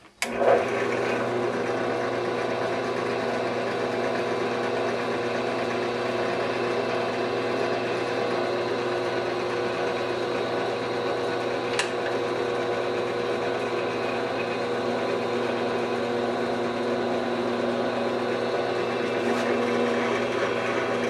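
Bench drill press switched on and running steadily with a thin wire chucked in place of a bit, its motor giving an even hum. One brief click sounds about twelve seconds in.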